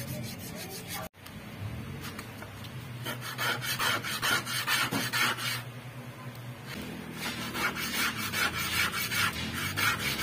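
A small piece of wood sanded by hand on a sheet of sandpaper, rubbed back and forth in quick scratchy strokes that get louder in two long spells. In the first second, before a brief cut, the wood is scraped against a metal tool.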